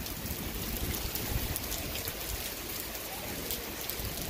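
Steady rain falling, with scattered single drops ticking close by.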